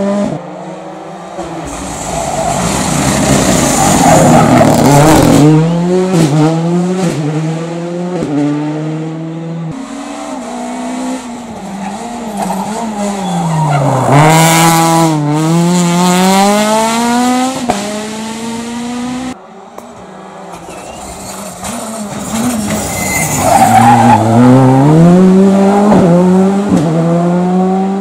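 Rally cars driven flat out through tight corners one after another, each engine revving high, dropping sharply under braking and climbing again through the gears as it accelerates away, with tyre squeal.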